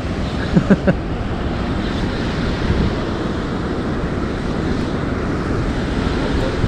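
Steady rush of turbulent water pouring out below the dam gates, mixed with wind buffeting the microphone.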